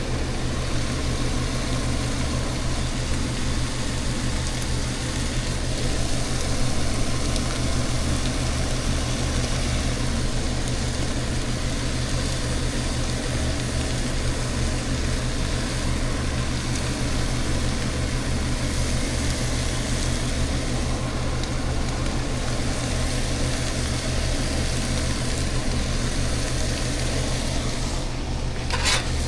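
Steady low machine hum over a constant rushing noise, with one sharp click near the end.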